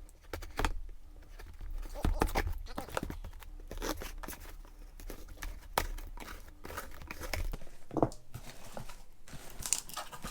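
Packaging being unwrapped by hand: paper or tape tearing and plastic crinkling, with scattered clicks and knocks and one sharper knock near the end.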